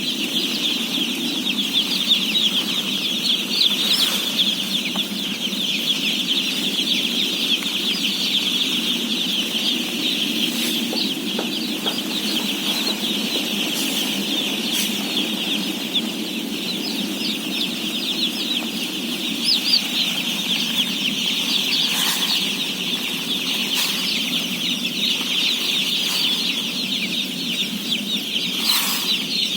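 A dense, continuous chorus of thousands of day-old chicks peeping together, over a steady low hum, with a few brief clicks.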